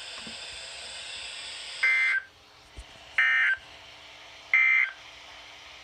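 Three short bursts of Emergency Alert System SAME digital data, the end-of-message signal, each about a third of a second long and spaced roughly 1.3 s apart. Steady radio hiss stops abruptly as the first burst ends.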